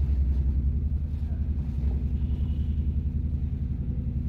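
Steady low rumble with a fluttering texture.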